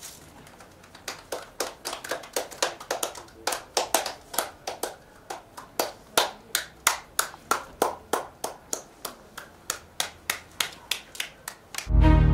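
People clapping in a steady, even rhythm of about four to five claps a second. Music comes in loudly near the end.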